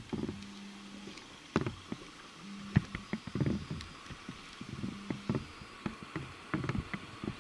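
ČD class 814 Regionova diesel railcar rolling slowly through station points, its wheels giving irregular clicks and clunks over the switches and rail joints, with a low hum that comes and goes.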